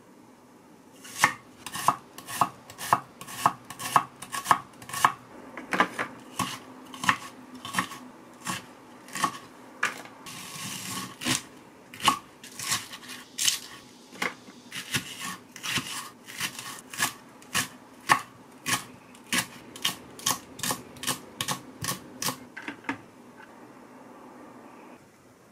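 Kitchen knife chopping vegetables, among them a leek, on a wooden cutting board: a steady run of sharp knocks about twice a second, with a short scraping sound about ten seconds in. The chopping stops a couple of seconds before the end.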